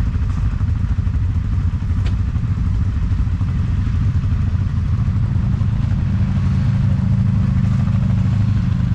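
ATV engine running steadily under way on the trail, a loud, even low drone.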